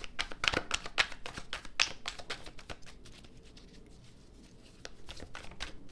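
A deck of tarot cards being shuffled by hand: a quick run of small card clicks and slaps, thinning out in the middle and picking up again near the end.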